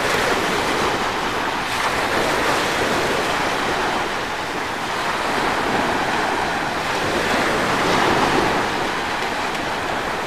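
Small sea waves washing onto a beach: a steady rush of surf that gently swells and eases.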